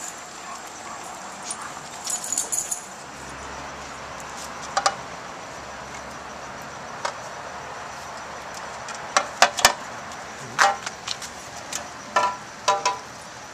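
Puppies knocking against stainless steel food and water bowls: scattered sharp metallic clinks and clanks, some briefly ringing, over a steady hiss, coming thickest in the second half.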